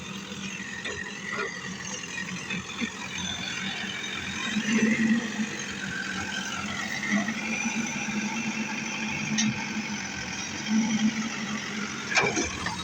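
Backhoe loader's diesel engine running steadily, swelling in loudness a few times as it works, with a sharp knock near the end.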